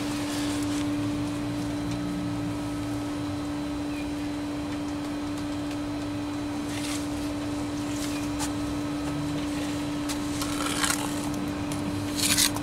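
Steel trowel working mortar on concrete block: a few soft, spaced scrapes, then louder scrapes near the end, over a steady machine hum with a single pitch.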